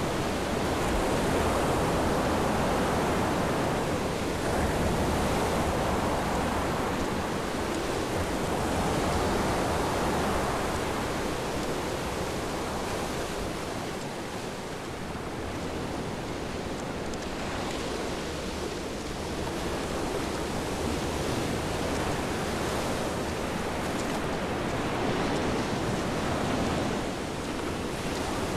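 Ocean surf breaking and washing up a sandy beach: a steady rushing that swells and eases slowly.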